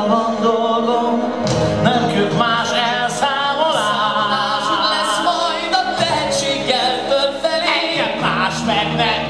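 Two male singers singing together live into microphones over an instrumental accompaniment, holding long wavering notes.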